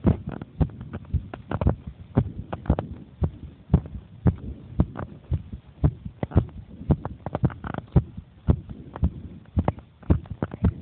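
A 10-year-old child's heartbeat picked up close to the chest: regular thumps, about two a second.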